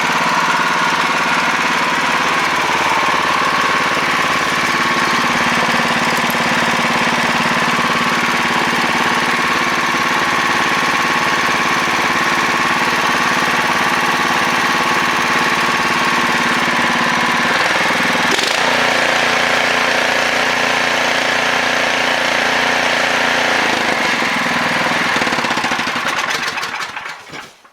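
Snowblower engine running steadily. About two-thirds of the way through it drops to a lower speed, and near the end it winds down and stops.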